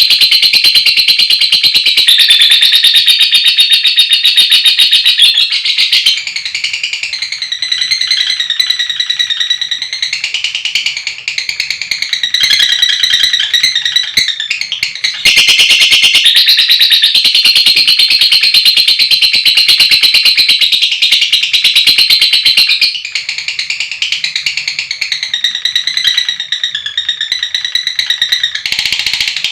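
Lovebird ngekek: a long, unbroken, rapid high-pitched chattering trill. It is loudest for the first six seconds and again from about fifteen to twenty-three seconds in, and softer in between.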